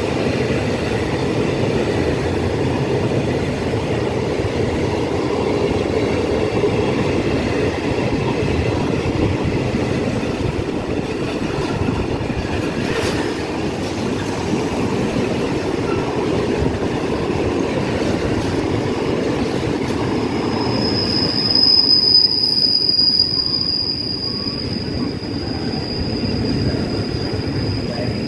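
Container freight train's wagons rolling past at close range, a steady rumble of wheels on rail. About two-thirds of the way through, a high steady squeal sets in and carries on.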